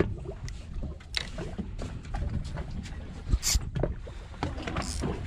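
Steady low rumble of a fishing boat at sea, with scattered clicks and knocks and a few short hissing bursts. A sharper knock comes a little past halfway.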